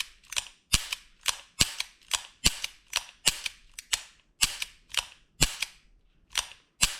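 Ruger GP100 7-shot revolver dry fired in single action: the hammer is cocked and dropped over and over, giving a steady run of sharp metallic clicks, about three a second, as the cylinder indexes round.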